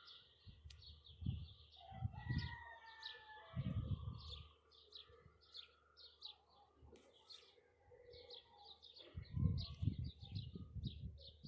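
Many small birds chirping in a fast, continuous chatter of short high notes, with a few falling whistled notes early on. Low rumbling bursts break in several times, most of them close together near the end.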